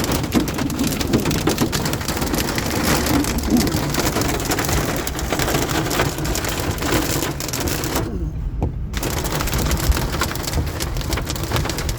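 Hail mixed with rain pattering densely on a car's roof and windshield, heard from inside the cabin over a low rumble. The patter drops out for about a second near the end.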